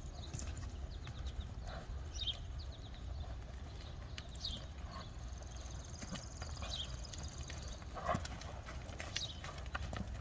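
A horse walking on arena sand, its hoofbeats soft and uneven. Short, high, falling chirps come every couple of seconds, and a low steady rumble runs underneath.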